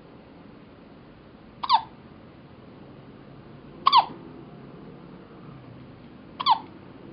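A newborn baby hiccuping three times, about two to two and a half seconds apart, each hic short and dropping quickly in pitch.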